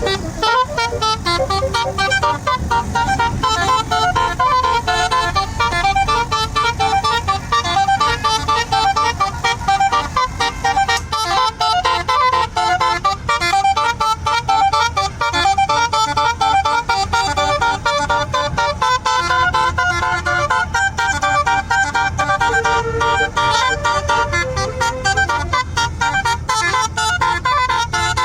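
A tour bus's basuri musical air horn playing a melody of short horn notes at changing pitches, over a steady low rumble.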